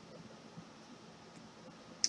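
Quiet hiss with faint, soft rustling of trading cards being flipped through by hand.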